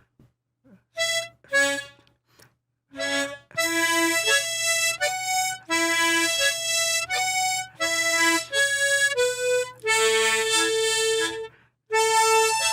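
Tremolo harmonica playing a children's song, the melody carried over its own chord accompaniment on the same instrument. A few short separate notes come first, then the tune runs on continuously from about three seconds in.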